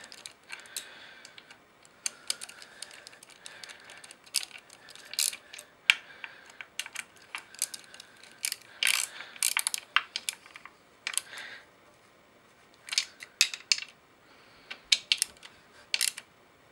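Small hand ratchet clicking in quick, irregular bursts, a few strokes at a time, as it tightens the cam chain tensioner's mounting screws.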